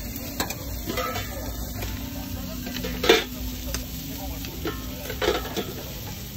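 Food sizzling on a flat-top griddle, under a few sharp clicks and rustles from a plastic spoon and aluminium foil as topping is spread on a bun. The loudest click comes about three seconds in.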